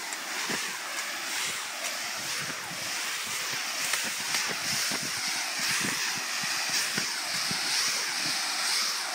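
Lawn sprinkler spraying water up through a trampoline mat, a steady hiss, with irregular thumps of feet landing on the wet mat.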